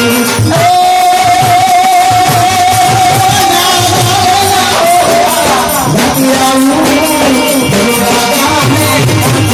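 Live Gujarati devotional folk music (bhajan): a long held, wavering melody note for the first half, then shorter melodic phrases, over a steady drum beat.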